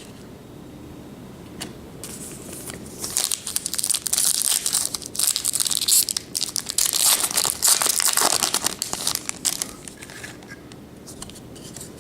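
Plastic foil wrapper of a Topps baseball card pack being torn open and crinkled: a few seconds of ripping and rustling that start about three seconds in and die away near the end.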